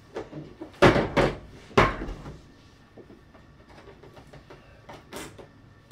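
Large cardboard toy box knocking down twice on a glass-topped table, about one and two seconds in, followed by faint clicks and rustling of scissors working at the packing tape.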